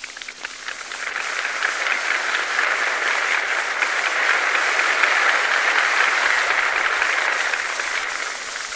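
Applause from a huge open-air rally crowd, swelling about a second in and dying away near the end, heard on an old 1942 recording.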